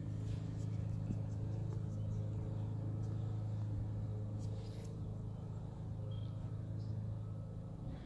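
A steady low mechanical hum, like an engine or motor running at an even speed, holding one pitch throughout.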